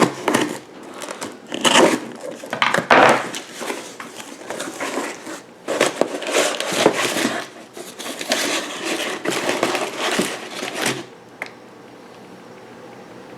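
Packaging crinkling and rustling in irregular bursts as a replacement refrigerator evaporator fan motor is unboxed, stopping about eleven seconds in and leaving a faint low hum.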